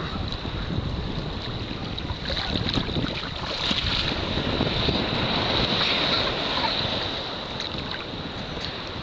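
Ocean surf rushing and washing around the shallows, swelling and easing gently, with wind buffeting the microphone.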